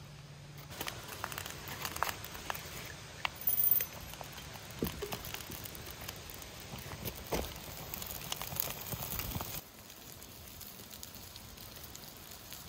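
Dry birch bark crinkling and rustling as it is handled, then crackling as it catches and burns, with scattered sharp snaps and one brief louder burst about three and a half seconds in. Near the end the crackling is quieter and sparser.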